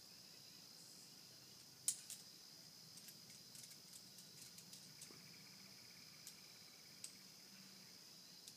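Faint, steady high-pitched chirring of crickets, with a sharp click about two seconds in and scattered faint clicks after.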